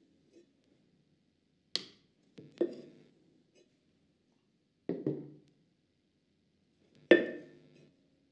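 Wet wooden stick struck against the outside wall of a soft, freshly thrown clay cup on a pottery wheel, with a second stick held inside it to shape the wall. Five sharp knocks, each with a brief ringing tail, two of them close together in the middle and the loudest near the end.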